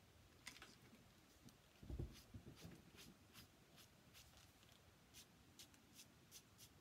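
Faint short scratching strokes of a pen-shaped drawing tool rubbed over graphite on paper, about two or three a second, with a soft thump about two seconds in.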